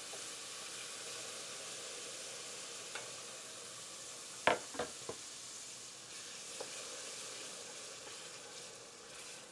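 Diced celery, onion and bell pepper sizzling in a hot oil-and-flour roux in a stainless steel pot, a steady hiss. A few sharp knocks come about halfway through, and the vegetables are stirred toward the end.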